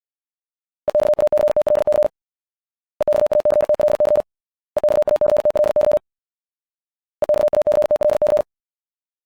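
Morse code sent at 70 words per minute: a single mid-pitched beep keyed on and off in very fast dots and dashes. It comes as four equal bursts of about a second and a quarter each, with short silences between.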